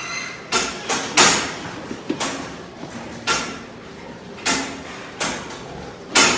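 Metal sow-crate bars rattling and clanking in a series of short, sharp knocks, about eight of them at uneven intervals.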